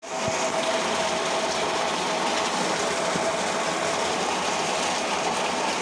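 Steady rush of water pouring from a pipe into a concrete tank, with children's splashing, over a steady mechanical hum.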